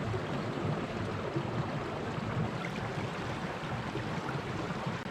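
Steady rushing of running water from a mountain stream and its partly frozen cascades, an even noise with a few faint ticks.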